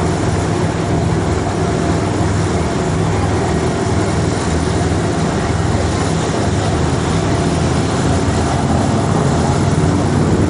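Tour boat's engine running steadily, heard on board as an even low hum under a wash of broad noise.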